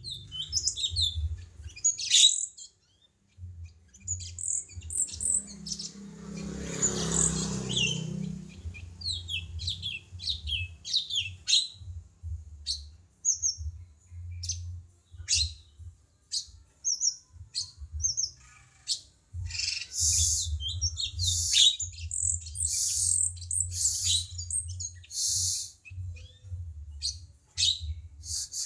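A cungko songbird singing: bursts of short, high chirps and quick trills, repeated over and over with short gaps. A low hum runs underneath, and a brief rushing noise rises and falls about six to eight seconds in.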